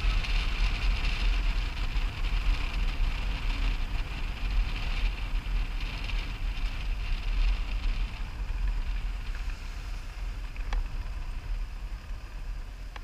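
Motorcycle under way: wind buffeting the camera microphone over road and engine noise, growing quieter over the last few seconds as the bike slows.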